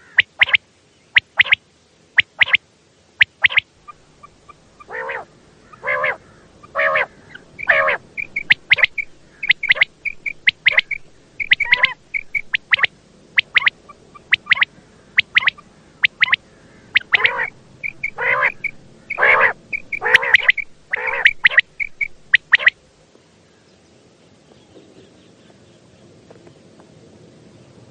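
Quail (batair) calling in a rapid series of short, sharp notes, some in quick runs of several calls, stopping abruptly about 23 seconds in and leaving a faint low hum.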